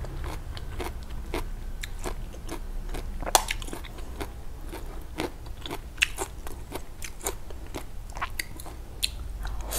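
Close-miked chewing and crunching of a mouthful of larb made of phak kan jong stems and freshwater snail meat. It comes as a string of irregular crisp clicks and crackles.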